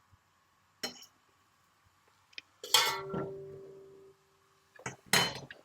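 Kitchen utensils knocking against a Dutch oven as onions are put in to soften: a short clink about a second in, a louder clink near the three-second mark that rings on for over a second, and another clink near the end.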